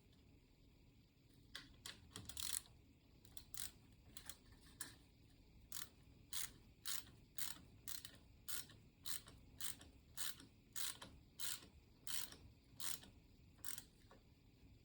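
Hand ratchet clicking in short back-and-forth strokes as it tightens the pinch bolt of the lower fork clamp on a motorcycle fork tube. The strokes start unevenly, then settle to a steady rhythm of about two a second before stopping near the end.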